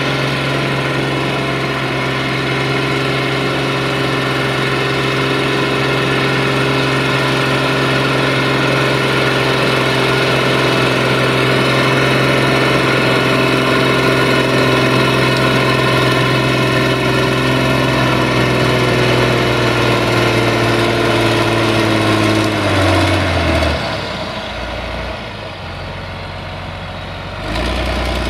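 Fiat 1380 DT tractor's six-cylinder diesel engine running steadily under heavy load while ploughing through wet ground. Near the end its pitch falls and the sound quietens for a few seconds, then comes back at full strength.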